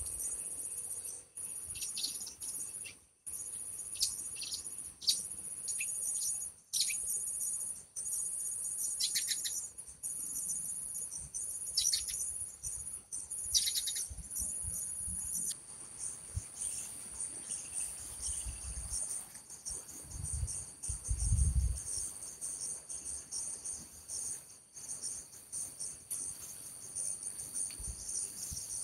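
Steady high-pitched chorus of insects, with short falling bird calls repeating through the first half. A few low rumbles about two-thirds of the way in.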